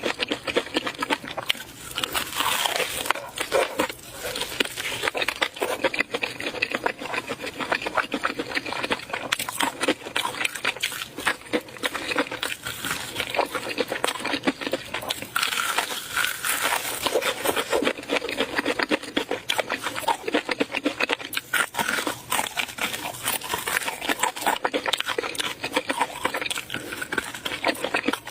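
Eating sounds up close: chewing and mouth smacking, a dense, continuous run of small clicks and crackles.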